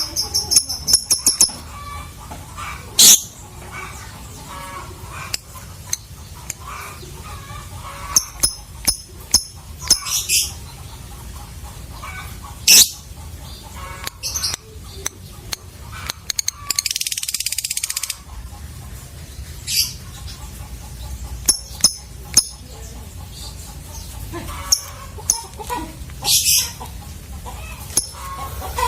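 Lovebird calls: sharp, high-pitched chirps and squeaks in scattered bursts, with one longer, harsh chattering call lasting about a second and a half in the middle.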